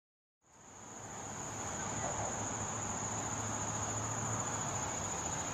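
Insects singing in a steady, high-pitched continuous chorus over an even outdoor background hiss, fading in from silence about half a second in.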